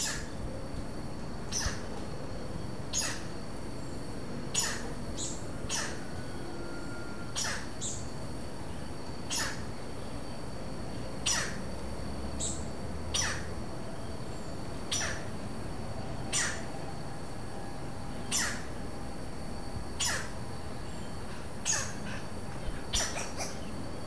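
Robust woodpeckers (Campephilus robustus), a pair calling back and forth with short calls, about one every one to two seconds, each a quick downward sweep.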